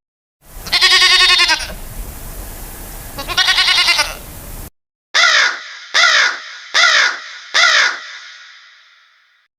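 Two long bleats with a wavering pitch over a steady hiss, then a cut to four short calls about a second apart, each falling in pitch, fading out with an echo after the last.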